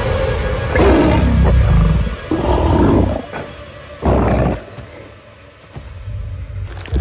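A huge goblin roaring: three deep, snarling roars in quick succession, each sliding down in pitch, over a film score.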